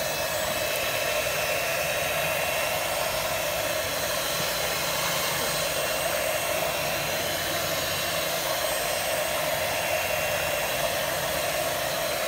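Philips electric hand mixer running steadily, its twin beaters whisking a large steel bowl of beaten eggs into a froth.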